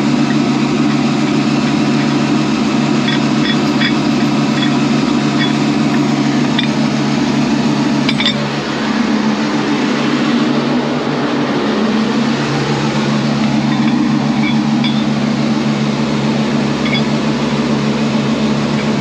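Heavy-duty rotator wrecker's diesel engine running steadily, with a brief dip and slight change in pitch about halfway through and a few faint metallic clicks.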